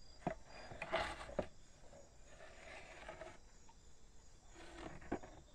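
Handling noise from a rough block of cocobolo wood being turned over in the hand above a wooden bench: a few light knocks and some soft rustling. Faint insects chirp in the background.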